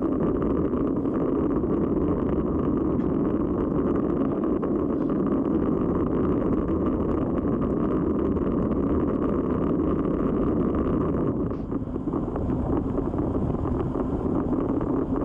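Steady wind rush over a bicycle-mounted camera's microphone while riding at racing speed on a road bike, easing briefly about twelve seconds in.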